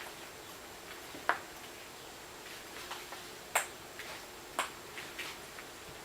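Joints cracking: three sharp pops, about a second in, about three and a half seconds in and about four and a half seconds in, with a few fainter clicks between.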